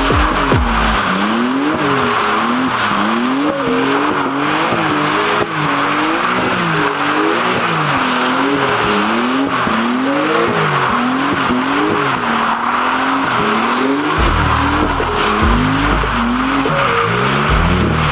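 BMW M4's twin-turbo inline-six revving up and down about once a second, over a continuous tire squeal as the car spins donuts.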